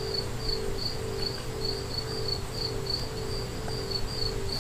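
A cricket chirping steadily, about three chirps a second.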